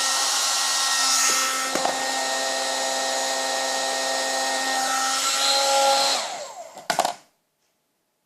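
Hair dryer blowing steadily with a motor whine, drying the glued sponge squishy. About six seconds in it winds down, the whine sliding lower, and a click comes as it stops.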